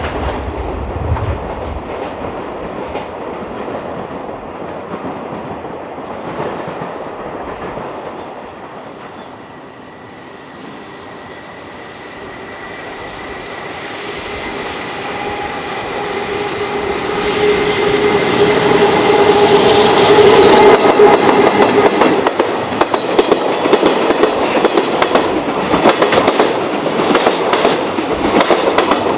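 Electric train rolling past on jointed track. The rolling sound fades to a low point about ten seconds in and then builds again as a train comes near. A steady motor whine rises from about fifteen seconds in, and from about twenty seconds the wheels clatter loudly and rapidly over the rail joints.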